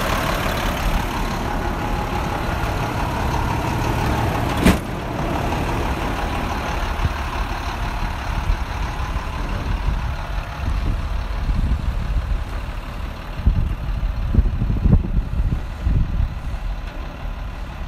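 Diesel engine of a 2003 International 7400 truck idling steadily, with one sharp click about five seconds in. The sound grows duller partway through, and a few uneven low thumps come near the end.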